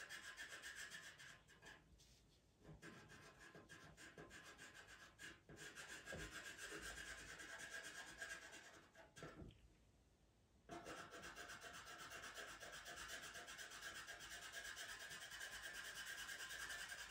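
Faint, quick scratching of a pastel pencil hatched over and over on sanded Pastelmat paper, laying pastel into a dark background. It stops briefly twice, about two seconds in and again around nine to ten seconds in, as the pencil lifts.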